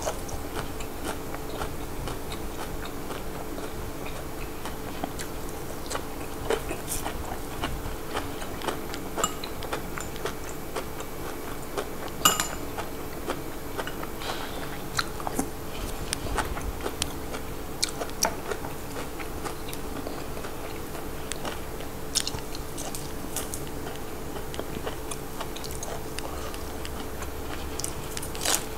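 Close-up mouth sounds of a person chewing and crunching fresh raw vegetables dipped in frog chilli dip (pon kob). Scattered sharp clicks and crunches come throughout, the loudest about twelve seconds in, over a steady low hum.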